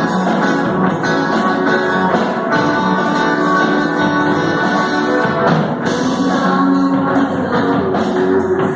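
A live band playing a worship song, with guitar over a drum kit keeping a steady beat.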